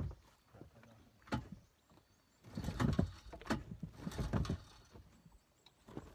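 Knocks, thumps and rattling from handling a stopped outboard motor on a small boat: one sharp knock, then a busy run of thumps and clatter, with no engine running.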